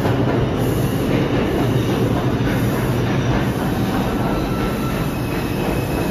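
New York City subway train running through the station: a loud, steady rumble of steel wheels on rail. Thin, high wheel-squeal tones come in after about four seconds.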